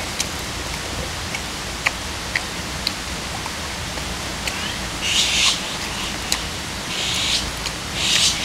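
Steady rush of a small stream flowing close by, with scattered small clicks and a few brief hissing sounds about five, seven and eight seconds in.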